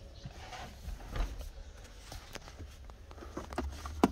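Handling noise: scattered light knocks and rustles as a hand picks up a small wired plastic controller box, with one sharper click near the end, over a low rumble.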